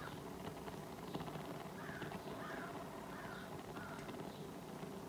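A bird calling: about five short calls in quick succession from about two seconds in, each rising and falling in pitch, over a steady low background noise.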